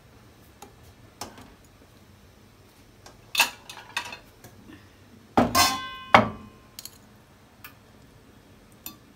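Kitchen dishes and utensils clinking, with a few light clicks and knocks. About five and a half seconds in comes a louder clatter with a short metallic ringing tone.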